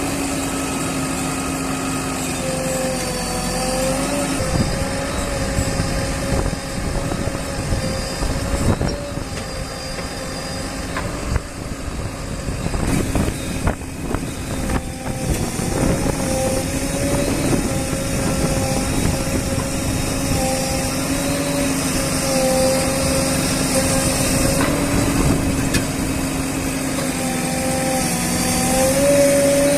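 Diesel engine of a JCB backhoe loader running steadily, its pitch dipping and rising slightly as it works under load. There are a few knocks and rough stretches partway through.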